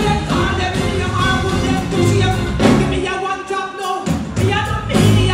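Loud live dancehall music: a female artist singing into a microphone over a beat with heavy bass and drum hits.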